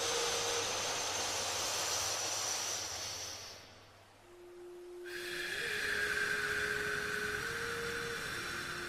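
Slow breath drawn in through the nose, a soft hiss that fades away over about four seconds. After a short lull comes a longer breath out through the nose with a faintly whistling hiss. Beneath both, a soft sustained tone steps between a few pitches.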